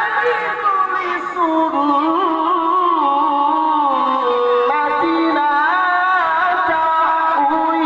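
A man reciting the Quran in the melodic tilawah style, holding long notes that waver and turn through ornamented runs.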